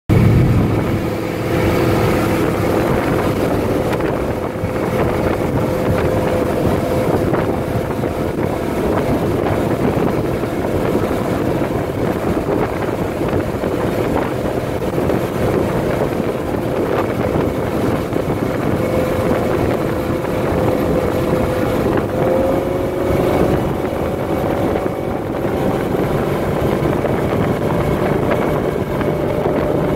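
A Piantoni Super Montecarlo mahogany runabout's engine running steadily at speed, with wind on the microphone and the hull rushing through the water. The engine note rises slightly about two-thirds of the way through.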